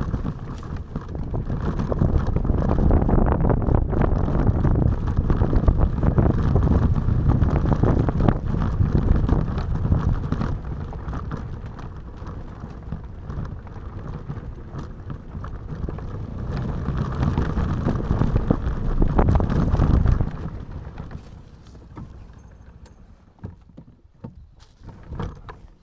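Scooter riding over a gravel forest track: engine, tyres crunching on loose gravel and wind rushing on the microphone. The noise drops away sharply about 20 seconds in, leaving only scattered small crunches and clicks.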